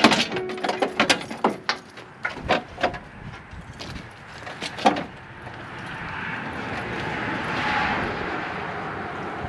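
Hand tools working on the truck's front-end metal: quick ratchet-like clicks and metal knocks in the first couple of seconds, a few single knocks after, then a smooth whooshing noise that swells and fades over the second half.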